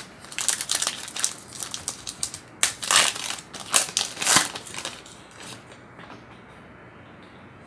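Foil wrapper of a 2018 Select football card pack being torn open and crinkled by hand, a run of sharp crackles that stops about five seconds in.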